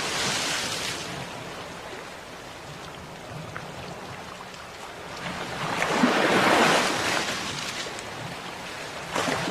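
Sea waves washing onto a shore. A fading rush at the start, then one wave swells and breaks past the middle before falling away, and the next starts to come in near the end.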